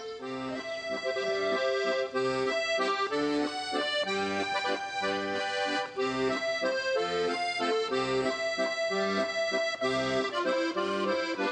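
Accordion music with held chords over a regular beat of low bass notes.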